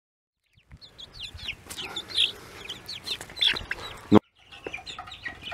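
A group of young chickens about six weeks old peeping in many short, high, falling calls, starting about half a second in. A single sharp knock about four seconds in, after which the sound drops out briefly before the peeping resumes.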